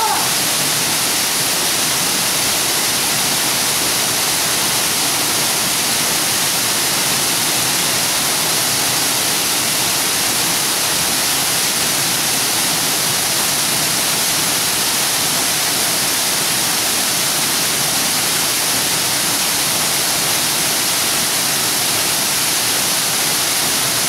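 Waterfall pouring down close at hand, heard from right inside the falling water: a loud, steady, unbroken rush.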